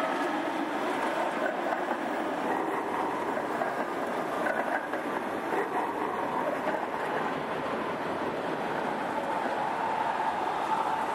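Articulated low-floor trams running past on street track: steady wheel-on-rail rolling noise with the hum of the drive. One tram passes at the start and another goes by near the end, with a faint whine rising over the rolling near the end.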